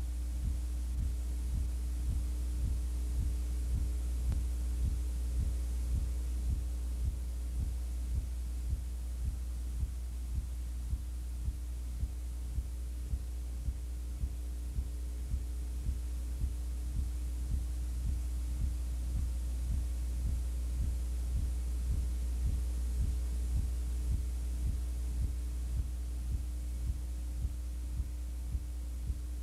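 Steady low electrical hum with a regular throbbing pulse and no game or crowd sound: noise on the audio track of an old videotape transfer.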